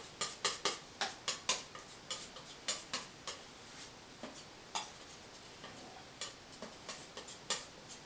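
Palette knife mixing oil paint on a palette: quick, irregular clicks and taps of the metal blade against the palette, several a second, thinning out after about three seconds.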